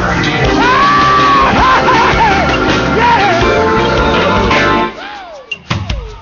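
Live gospel band with soaring, sliding vocal runs over it; almost five seconds in the band drops away, leaving a lone falling line and a few sharp hits.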